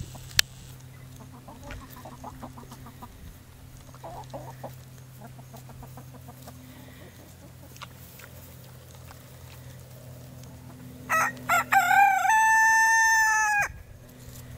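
Rooster crowing about eleven seconds in: a few short broken notes, then one long held note that stops abruptly. Before it, only faint light ticking.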